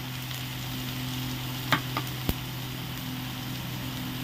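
Chopped onions sizzling in hot mustard oil in a frying pan. About halfway through, a utensil knocks against the pan three times in quick succession.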